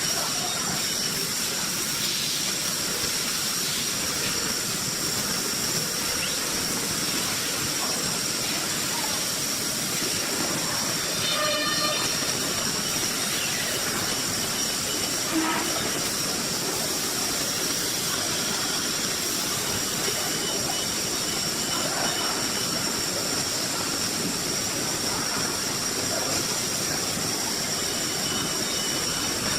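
CNC router's spindle running at speed, a steady high-pitched whine over a constant hiss of machine noise.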